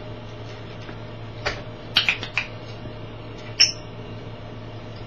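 African grey parrot making a few short, sharp clicks about one and a half to two and a half seconds in, then one brief high squeak-like click a little later, over a steady low hum.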